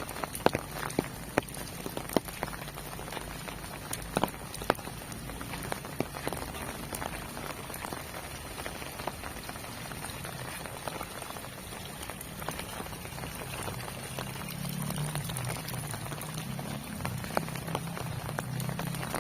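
Heavy rain falling steadily, with many close drops landing as sharp ticks, thickest in the first few seconds. A low rumble comes in about three-quarters of the way through.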